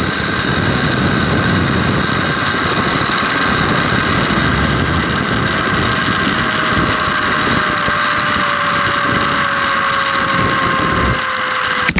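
Zip line trolley pulleys running fast along the steel cable, a steady whirring whine with wind rushing on the microphone. The whine slowly falls in pitch through the second half as the rider slows toward the landing, the low rush drops away near the end, and a sharp click comes right at the end.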